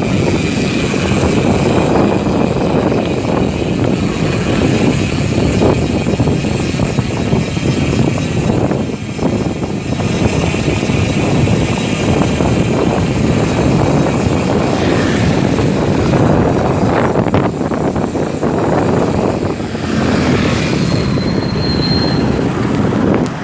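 Rapid clicking buzz of a Maxzone Stroke 1.0 rear cassette hub's 3-pawl freehub ratchet as the bike coasts, under heavy wind rumble on the microphone from riding. The ratchet buzz is clearest in the first several seconds.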